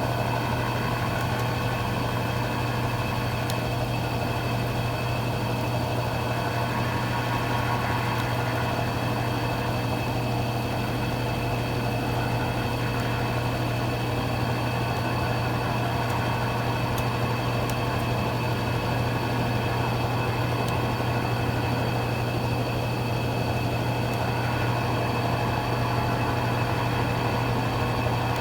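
Consul Cargo 8 kg washing machine running, with a steady, unchanging motor hum.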